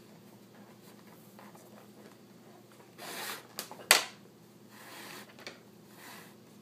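Leather lace being pulled through the finger holes of a leather baseball glove: a few short swishes of leather rubbing on leather. A sharp click about four seconds in is the loudest sound.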